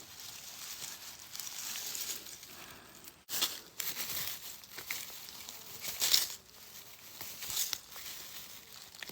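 Dry leaves and dead grass rustling and crackling in irregular bursts as someone moves and rummages through them, with a couple of louder crunches partway through.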